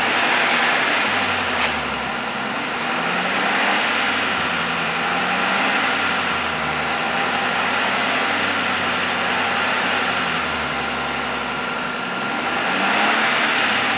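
Maruti Suzuki Alto 800's 800 cc three-cylinder petrol engine idling, heard at the tailpipe, its pitch drifting slightly up and down. The sound cuts off suddenly just after the end.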